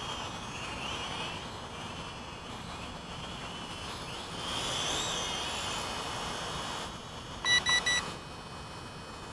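Tarantula Spider 1505 quadcopter's motors and propellers whining in flight, the pitch wavering as it manoeuvres and swelling louder about halfway through. Near the end, three quick electronic beeps, the loudest sounds.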